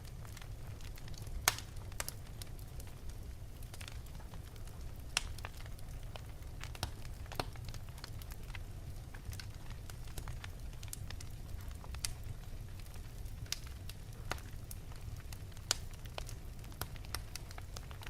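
Wood fire burning in an open fireplace, crackling and popping irregularly over a steady low rumble. The loudest pop comes about a second and a half in.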